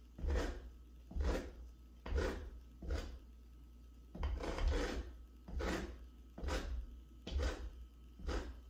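Lemon rubbed against a hand grater to take off the rind: rasping strokes, about one a second, each with a low knock.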